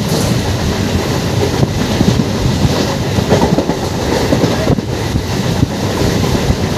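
Passenger train running along the line, heard from inside a coach at the window: a steady rumble with many short, irregular knocks from the wheels on the track.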